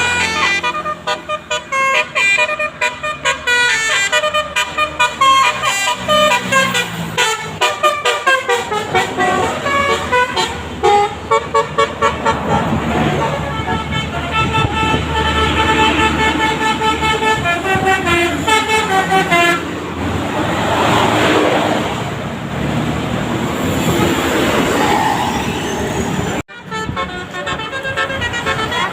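Bus's basuri musical 'telolet' horn playing a quick tune of short pulsed notes, several pitched tones sounding together and changing pitch note by note. About 20 s in it gives way to a noisier stretch, then breaks off abruptly near the end as another horn clip begins.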